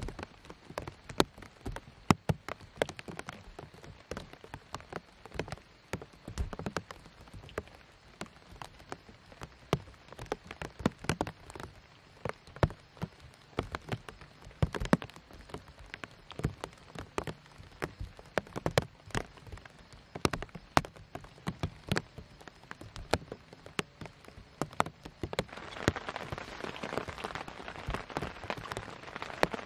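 Rain falling on a tent, large drops landing in irregular sharp taps over a faint hiss; about three-quarters of the way through the hiss thickens and grows louder.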